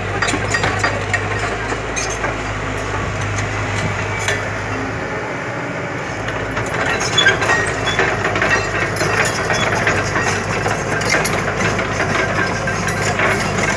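A JCB crawler excavator's diesel engine runs steadily at a low hum, with scattered clicks and clinks throughout that grow busier about halfway through.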